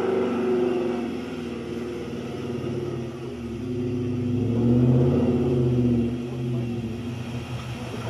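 Four-wheel-drive vehicle engine running under load, revving up about four seconds in and easing off again around six seconds.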